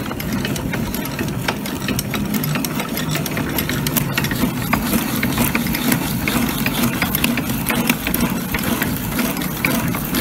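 Hand-cranked antique blacksmith's post drill running steadily, its gears turning with a rapid clatter of ticks as its spade bit bores a 2.5-inch hole through a rough-sawn board.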